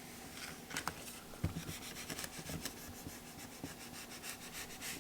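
Small squeegee rubbing over a freshly laid film screen protector on a folding phone's screen, in quick, faint, repeated short strokes along the edges, with a few light taps.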